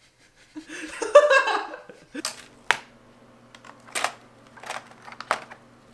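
A woman laughing briefly, then a handful of sharp clicks and rattles as hands handle a hair clipper kit in its case: clipper, attachment guards and scissors. A faint steady hum lies underneath.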